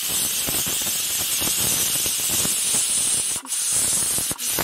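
Pressure cooker whistle blowing: a loud, steady hiss of steam escaping under the weight, breaking off briefly twice near the end. It is the final whistle, the sign that the rice-and-urad-dal khichdi inside is cooked.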